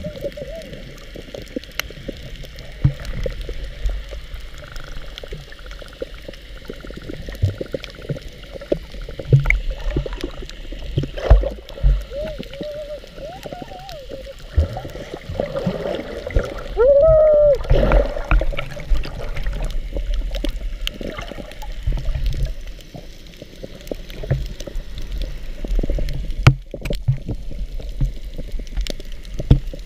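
Muffled underwater water noise from a snorkeling action camera: dull sloshing and gurgling with scattered sharp knocks, and a brief wavering tone a little past the middle.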